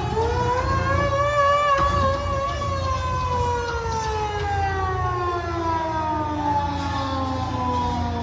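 Stadium siren sounding: its pitch jumps up right at the start, holds for about two seconds, then slowly winds down through the rest. A steady crowd din runs underneath.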